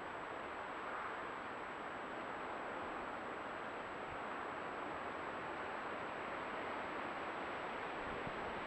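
Steady, even hiss with a thin, high-pitched steady whine above it: the self-noise of a trail camera's built-in microphone. A few soft low bumps come near the end.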